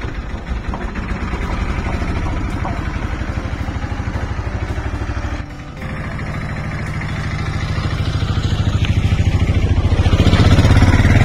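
Auto-rickshaw engine running with a steady low chug, briefly dropping about five and a half seconds in, then growing louder near the end as the three-wheeler pulls away.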